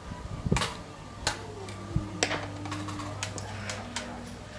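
Hard xiangqi pieces clicking against one another and on the wooden board as they are gathered into stacks and set back out, separate clacks every half second or so. A steady low hum sits underneath from about a second in until near the end.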